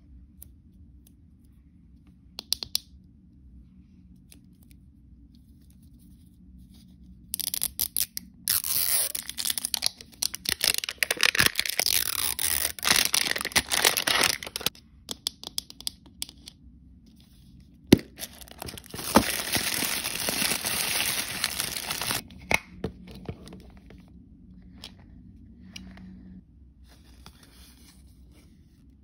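Plastic film wrapper on an L.O.L. Surprise doll ball being torn open and crinkled, in two long spells of tearing and rustling. Scattered clicks and taps of handled plastic come between them, with one sharp click about midway.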